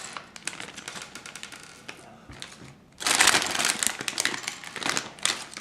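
LEGO set's plastic packaging being handled and opened, crinkling, with small plastic pieces clicking and rattling. It grows suddenly louder about three seconds in.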